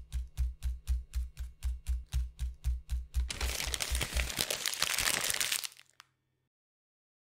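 A quick run of evenly spaced clicks with low thumps, about five or six a second. About three seconds in it gives way to dense crackling paper crinkling as a crumpled sheet of paper is unfolded, which stops about six seconds in.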